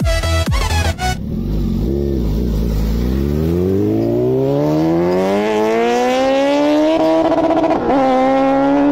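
Superbike engine accelerating hard: after a low rumble and a few quick revs, the engine note climbs steadily for about four seconds, dips briefly at a gear change near the end, then holds high. Electronic music plays for the first second.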